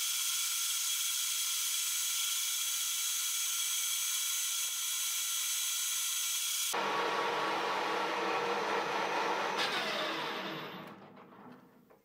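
Metal lathe running steadily with a whine of many steady tones as a twist drill bores into the spinning metal workpiece. Near the end the lathe is switched off and spins down, fading to quiet.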